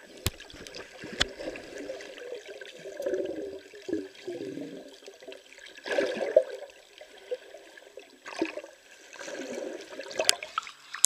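Water sloshing and bubbling around an underwater camera, muffled by being underwater, in irregular swells, with a few sharp clicks and knocks.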